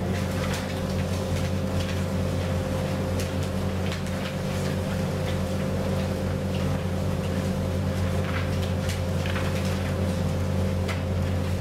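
Steady low mechanical hum with a thin higher tone over it, with faint rustles and ticks of paper pages being leafed through now and then.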